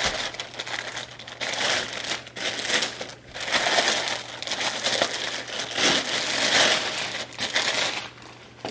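Packaging rustling and crinkling in uneven swells as a new rifle is unwrapped and lifted out of its box, dying away near the end.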